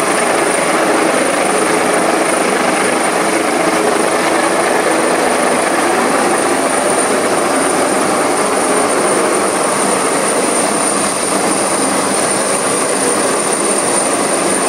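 AgustaWestland AW139 rescue helicopter hovering directly overhead: steady, loud rotor and turbine noise with a constant high whine.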